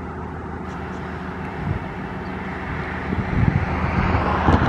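Diesel engines of Tasrail TR class locomotives running as a freight train rolls slowly toward the listener: a steady low drone that grows louder near the end, with a few low thumps.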